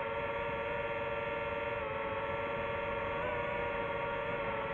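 FPV quadcopter's brushless motors and propellers whining at a fairly steady pitch, with small wavers as the throttle shifts.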